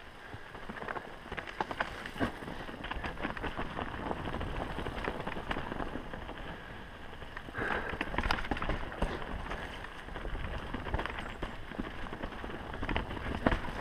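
Mountain bike riding down a rough dirt and rock trail: tyres rolling over dirt and stones with a steady run of clatters and rattles from the bike. A low rumble of wind on the microphone lies under it.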